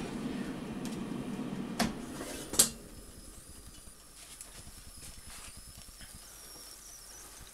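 Air fryer's fan running with a steady hum, then two clicks as the drawer is unlatched and pulled out. The hum cuts off with the second, louder click about two and a half seconds in, leaving only a faint hiss from the open basket.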